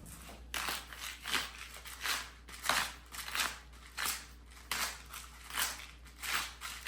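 Salt grinder being twisted over a pot of soup, a rapid run of short crunching, grating strokes, about two to three a second, as salt is ground in to season it.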